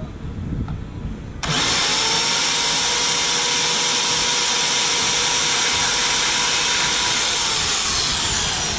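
Portable band saw starting about a second and a half in and cutting through metal stock clamped in a bench vise: a loud, steady motor whine with a bright blade-on-metal edge. It winds down near the end.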